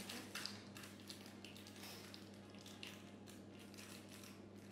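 Faint, irregular soft crunches and scrapes as a metal spatula is pressed down through a baked sheet-pan pancake, cutting it into slices, over a low steady hum.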